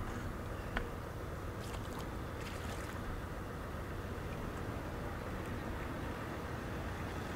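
Steady low background rumble with a single sharp click about a second in.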